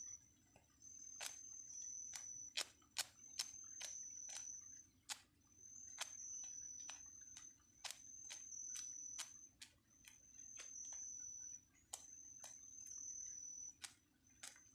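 Faint outdoor ambience: a thin, high-pitched call repeats about every second and a half, with irregular sharp clicks scattered between the calls.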